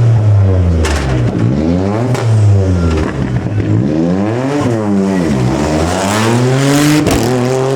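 Rally car engine at full throttle, its revs climbing and dropping several times as it accelerates and lifts through the stage, with a sharp crack about a second in and another near the end.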